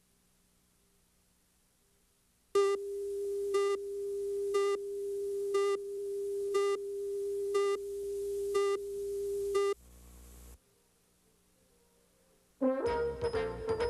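Countdown leader audio: a steady test tone with a short beep about once a second, eight beeps in all, cutting off about ten seconds in. Music begins near the end.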